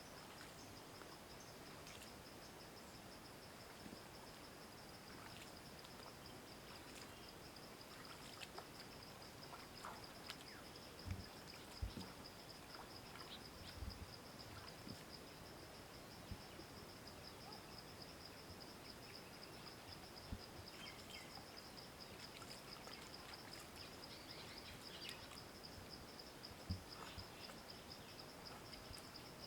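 Faint rural outdoor ambience: a steady, high, pulsing insect trill throughout, with scattered faint bird chirps and a few soft knocks.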